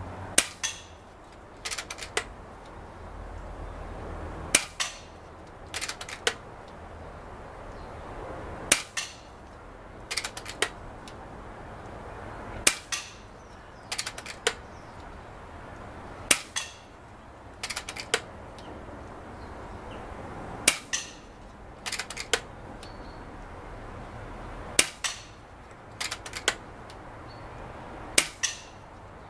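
.22 FX Indy PCP air rifle with a moderator, set to 18 ft-lb, firing eight shots spaced about four seconds apart, each a sharp crack. About a second after each shot come two lighter clicks close together.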